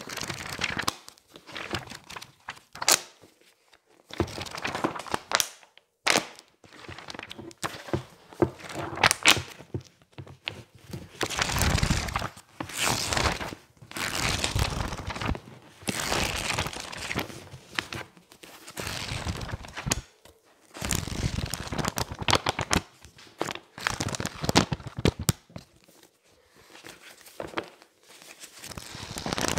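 Pages of a thick softcover book riffled and flipped hard by hand: bursts of fast paper fluttering and sharp snaps, separated by short pauses.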